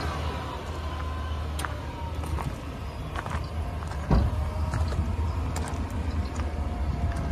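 Chevrolet Silverado 2500 HD's 6.0L Vortec gas V8 idling steadily, with scattered footsteps on gravel and a single thump about four seconds in.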